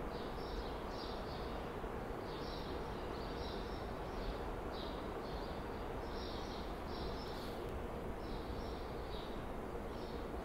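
Steady hum under a train shed, with a constant tone, and short high chirps repeating irregularly about once or twice a second, like small birds.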